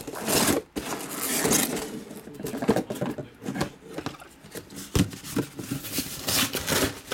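Cellophane-wrapped cardboard hobby boxes sliding out of a cardboard shipping case and being stacked on a table: rustling and scraping, with a few light knocks as boxes set down, one about five seconds in.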